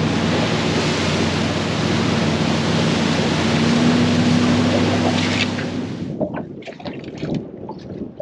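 Outboard-powered center-console boat running at speed: steady engine hum under wind and rushing water. About six seconds in it drops away to quieter lapping water with small scattered knocks.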